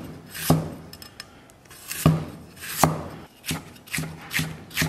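Chinese cleaver slicing ginger on a wooden chopping block: a few spaced knocks of the blade on the wood, then quicker strokes about three a second near the end.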